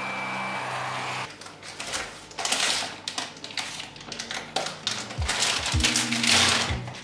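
A vacuum cleaner running steadily, cut off suddenly about a second in; then crinkling and rustling of foil coffee bags and pod packets being handled, in irregular bursts. Background music with low bass notes comes in near the end.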